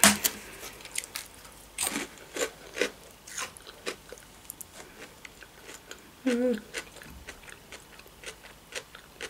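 Close-up eating of a crab-stick salad: irregular wet chewing clicks and lip smacks, with a short pitched vocal 'mm' about six seconds in.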